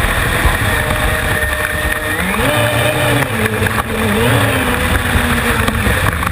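Small RC air-propelled boat's electric motor and air propeller whining, the pitch stepping up and down several times as the throttle is worked.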